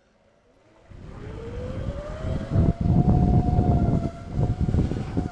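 Electric bike's motor whining as it pulls away, the whine rising in pitch for about two seconds and then holding steady, over a loud, uneven low rumble of the ride. It starts about a second in after a near-silent moment.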